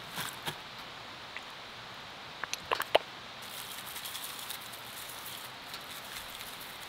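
Quiet food-preparation sounds: chopped chives being handled into a wooden bowl, a few sharp clicks about three seconds in, then a faint hiss as sauce is squeezed from a small plastic squeeze bottle over the chives.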